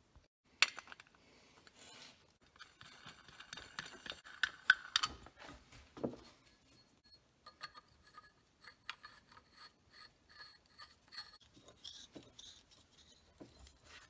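Metal burner fittings being handled and screwed together: scattered clicks, clinks and scraping as a black steel pipe is turned into a steel coupler. The sharpest clicks come about half a second in and near the middle, followed by a run of quick small ticks.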